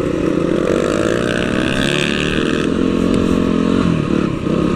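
Yamaha TTR dirt bike's single-cylinder four-stroke engine running under throttle, its pitch climbing early on and dipping near the end as the rider works the throttle.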